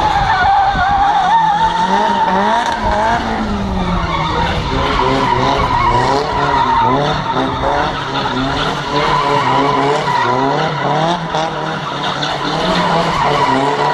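Drift car spinning donuts: its engine is held high in the revs, pitch wavering quickly up and down with the throttle, while the rear tyres squeal and skid continuously.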